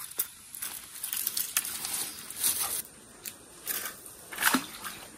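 A fishing lure being worked back across the surface of a shallow creek: a few short, irregular splashy pops amid faint crackling.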